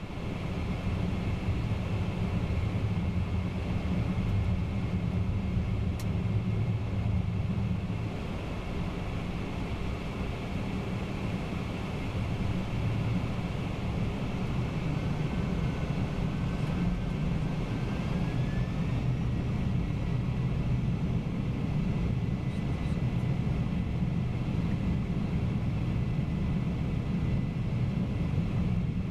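Steady roar of a Boeing 767-300ER jet airliner in climb: engine and airflow noise, heaviest in the low rumble, with a faint thin whine that rises slightly about halfway through.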